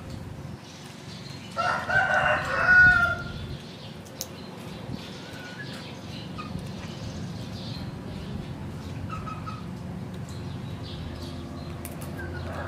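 A rooster crows once, about a second and a half in, lasting under two seconds, over a low steady background.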